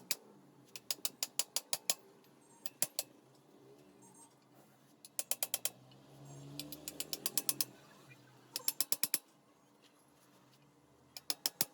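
A ratcheting hand tool clicking in short runs of quick, sharp clicks, about seven a second, with pauses between the runs, as work goes on at a copper refrigerant pipe. A faint low hum sits under one run near the middle.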